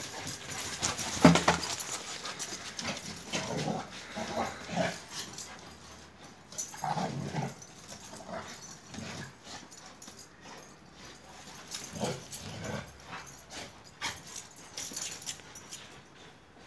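An Akbash and a Kangal shepherd dog play-fighting, with short bursts of dog vocal sounds every second or two, the loudest about a second in.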